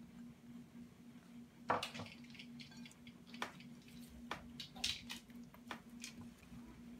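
Silicone spatula scraping against glass bowls and folding thick, wet muffin batter by hand: irregular soft scrapes, taps and squishes, the loudest about two seconds in. A steady low hum runs underneath.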